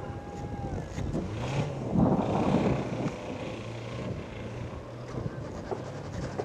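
Car engines revving with the tyres spinning in loose dirt, the engine note rising and falling, and wind rumbling on the microphone.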